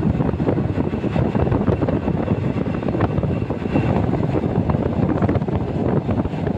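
ER2K electric multiple unit running at speed: a steady rumble of wheels on the rails with wind noise.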